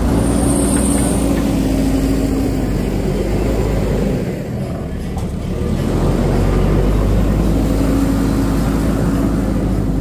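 JCB 3DX backhoe loader's diesel engine running steadily under load. It eases off briefly about halfway through, then builds back up.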